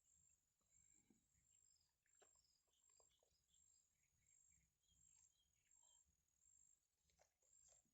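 Near silence: faint outdoor ambience with a steady high insect trill and a few faint short chirps and clicks.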